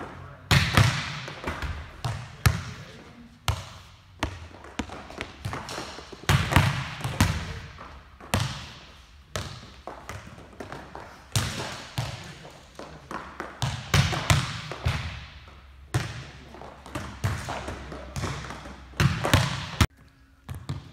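Volleyballs being spiked and bouncing in a gym: repeated sharp slaps of a hand striking the ball, each followed by the ball bouncing off the floor and walls, every second or two, with a hollow echo after each hit.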